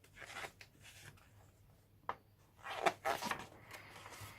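Pages of a hardback book being turned: soft paper rustling near the start, a short tap a little after two seconds in, and a louder swish of a page about three seconds in.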